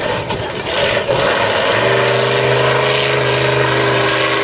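Monster truck engine running as the truck drives on sand, settling into a steady drone about two seconds in.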